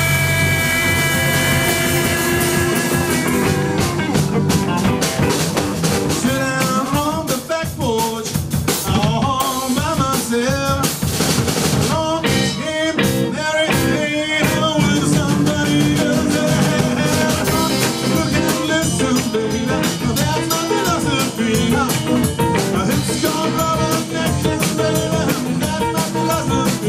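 Rock band playing with electric guitars, bass and drum kit. It opens on a held chord, and after about three seconds the full band comes in with drums.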